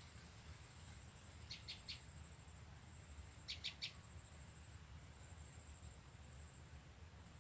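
A small prinia (prenjak) giving quick runs of three sharp chirps, twice, about one and a half seconds and three and a half seconds in, over a steady high-pitched whine.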